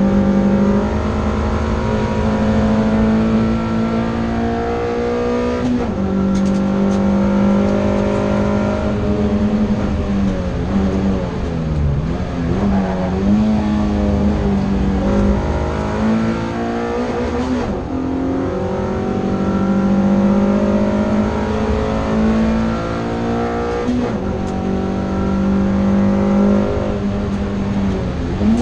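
Toyota MR2 race car's engine heard from inside the cockpit, running hard at high, mostly steady revs. Its note falls and climbs again several times as the car slows for corners and picks up speed.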